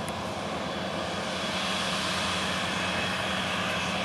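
Steady drone of a combine harvester and a tractor hauling a grain cart, running side by side across the field while the combine unloads grain on the move. It swells slightly about a second in.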